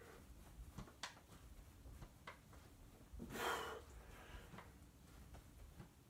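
A person breathing hard from exertion during a workout, with one loud breathy exhale a little past halfway, over quiet room tone with a few faint ticks.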